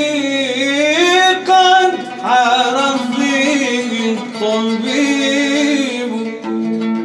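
A male nasheed singer sings a long, ornamented line of an Arabic devotional poem with music beneath. The voice stops about six seconds in, and steady instrument notes carry on.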